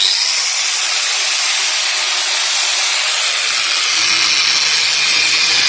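Angle grinder cutting into the steel shell of an old refrigerator's reciprocating compressor: a loud, steady high hiss and whine that starts abruptly, with a lower grinding sound joining about three and a half seconds in.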